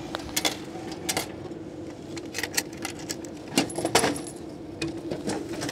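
Food vending machine dispensing a purchase, its delivery mechanism giving a steady motor hum, while coins of change clink and jingle in a hand, with scattered sharp clicks and clatters.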